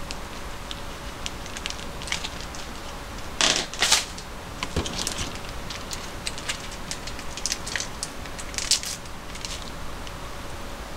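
Plastic sauce sachets crinkling and rustling in the hands as they are torn open and squeezed out, with two louder rasps about three and a half and four seconds in.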